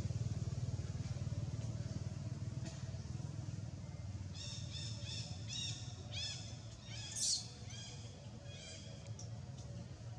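A run of about nine short, arched, high-pitched chirping calls from a small animal, starting a little before halfway, with one louder rising squeak among them, over a steady low rumble.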